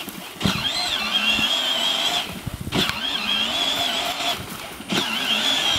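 Electric motor and gearbox of a Barbie Jeep battery ride-on toy whining as it drives, a high steady whine with a slightly wavering pitch. It cuts out and starts again about two and a half seconds in and once more near the end, as the child keeps stopping and going.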